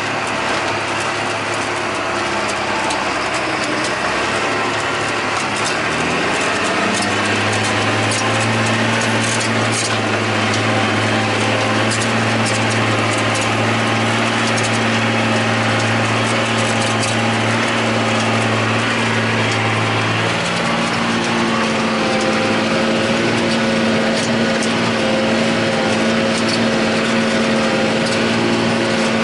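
John Deere 8100 tractor's six-cylinder diesel running steadily under load, heard from inside the cab while pulling a disk ripper through the ground. The note of the drone changes about seven seconds in and again about twenty seconds in, with scattered light clicks over it.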